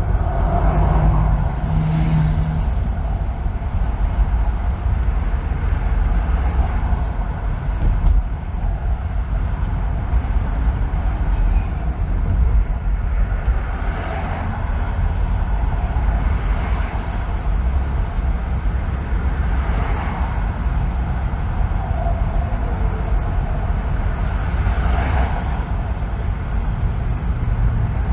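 Car driving on a freeway: steady low road and engine rumble with tyre noise, and brief swells every few seconds.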